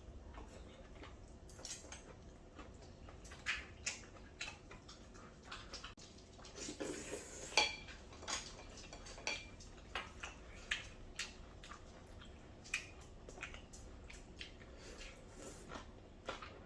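Metal spoons clinking and scraping against plates while eating curry rice: irregular light clicks throughout, with one louder clink about seven seconds in that rings briefly.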